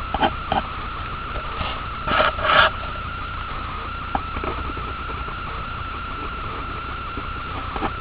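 Pen scratching across paper in two short strokes about two seconds in, with a few faint taps, over a steady high whine and low hum in the recording.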